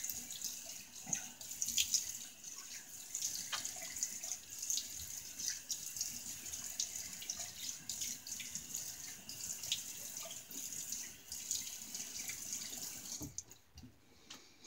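Bathroom sink tap running, with irregular splashing as things are rinsed under the stream. The water stops a little over a second before the end.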